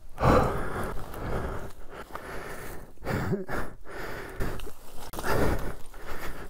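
A rider breathing hard and out of breath, with several heavy breaths and a brief rising groan about three seconds in.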